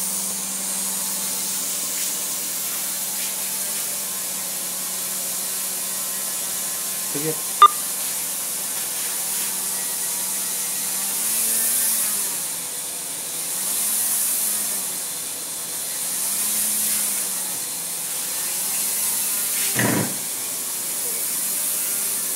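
Small electric motor and propeller on a helicopter test-bed arm running with a steady hum and airy hiss. From about eleven seconds in, its pitch and loudness swell up and down in slow waves roughly every two and a half seconds as the PID controller corrects the arm. A sharp click about eight seconds in and a short knock near the end.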